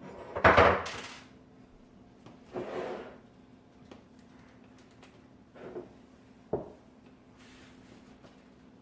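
Objects being handled on a hard work surface: a loud rustling clatter about half a second in, a softer rustle a couple of seconds later, then a few light knocks and a sharp click, over a faint steady hum.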